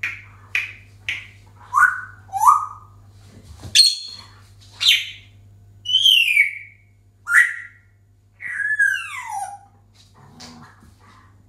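African grey parrot whistling and calling: a string of about a dozen separate whistled calls, some short and sharp, others long falling glides, dying away near the end.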